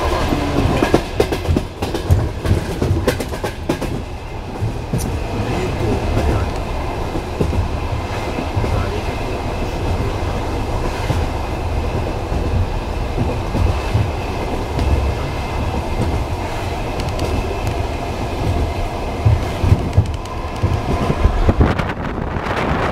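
Train wheels clattering over rail joints in a rhythmic knocking, with the steady rumble of the moving cars; the knocks come in clusters near the start and again near the end.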